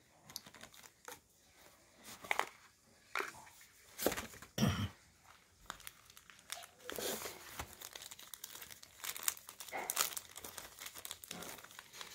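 Cardboard and paper packaging of a pair of true-wireless earbuds being handled and opened by hand: a run of irregular rustles, crinkles and scrapes as the inner box is opened and the charging case is unwrapped and lifted out, loudest about four to five seconds in.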